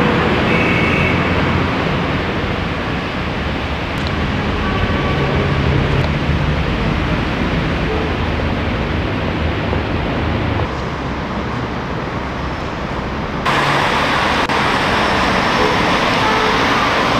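Steady city street noise from passing traffic. The noise drops suddenly about ten seconds in and comes back louder and brighter a few seconds later.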